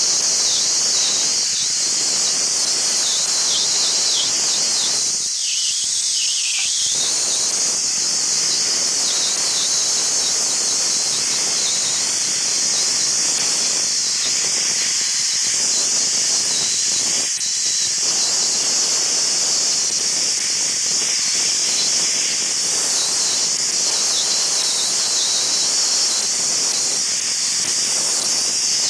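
Dustless Blasting wet abrasive blaster: the nozzle sprays compressed air, water and abrasive against a metal engine part in a steady, loud, high hiss.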